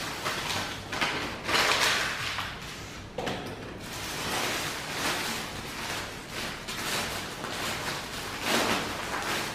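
Grey plastic courier mailer bag rustling and tearing as it is pulled open by hand, in uneven crinkly bursts, the loudest about a second or two in.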